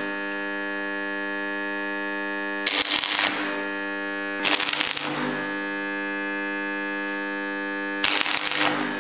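Stick (arc) welder laying short tack welds on thin steel tubing: three brief bursts of crackling arc, about three seconds in, about four and a half seconds in, and near the end, each under a second long. A steady hum runs underneath.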